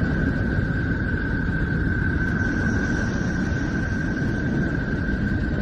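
Space 'sound of Neptune': electromagnetic data converted into audio. Steady dense low noise with a single high tone held over it, and a fainter, higher tone for about a second in the middle.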